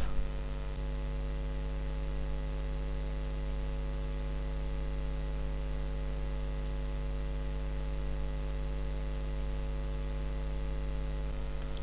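Steady low electrical mains hum with its overtones and a faint hiss, and no other sound.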